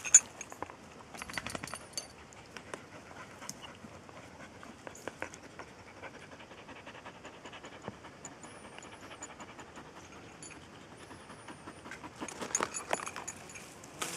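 Blue Heeler dog panting and snapping huckleberries off the bush, with scattered mouth clicks and leaves brushing close by. A louder flurry of clicks and rustling comes near the end.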